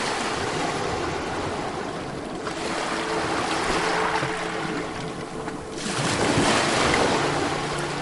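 Sea waves washing up on a beach: a surge at the start that slowly fades, then a second, louder surge about six seconds in.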